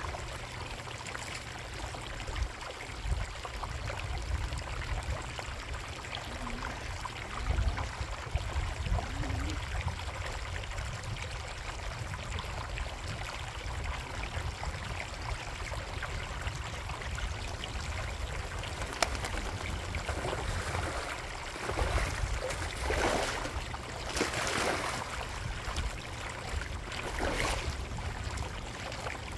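Water running and trickling steadily in a koi pond, with a low rumble underneath. A few louder splashy surges come in the last third.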